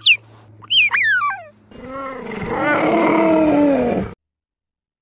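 Cheetah calls: a few high, sharply falling chirps in the first second and a half, then a lower, rougher call of about two seconds that cuts off suddenly.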